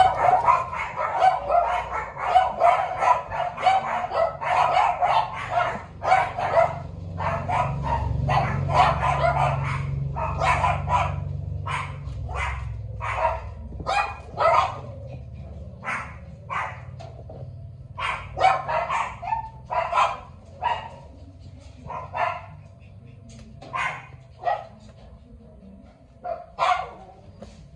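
A dog barking and yipping over and over, in quick crowded runs at first and then as separate short barks spaced about a second apart.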